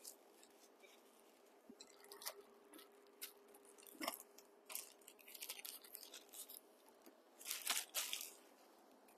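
Faint crinkling and rustling of a clear plastic bag as it is opened and a part is pulled out, in short scattered bursts, loudest about four seconds in and again near the end.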